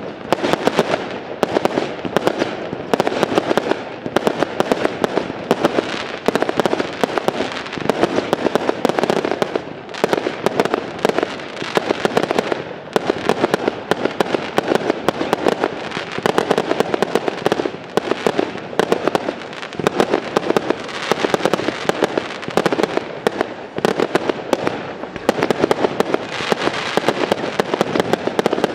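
Professional fireworks display: aerial shells launching and bursting in rapid, dense volleys of bangs that barely pause.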